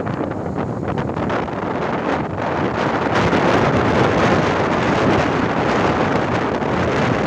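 Heavy wind blowing across the microphone: a dense, steady rush of noise that grows louder about three seconds in.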